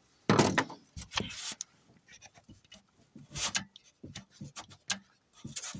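Irregular rubbing, scraping and light clicks from a hand working at a 4.7 V8's timing chain and chain tensioner, with a louder rustle just after the start. The chain has a lot of slop and the tensioner pushes in under a finger, the sign of a worn chain tensioner.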